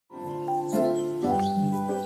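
Calm background music: sustained chords that start just after the opening and change about every half second.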